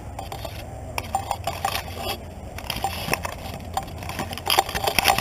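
Irregular crackling and clicking of plant leaves rubbing against the camera as it pushes through dense seedlings, growing busier near the end, over a low steady rumble.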